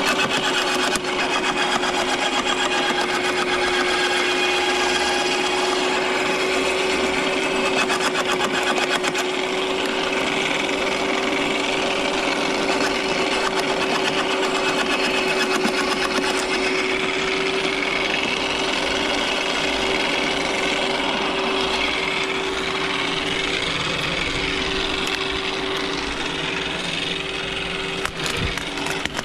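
Corded electric garden shredder running steadily with a constant motor hum, chewing branches fed into its hopper with a rapid crackling rattle. Near the end a few sharp snaps come as branches are cut with loppers while the shredder keeps running.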